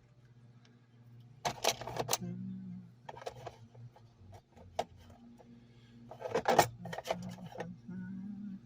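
Two bursts of rapid metallic clicking and clattering, one about a second and a half in and one near the end, with a few single ticks between, as tools work the bar nuts and cover of a Stihl 290 chainsaw loose. A steady low hum runs underneath.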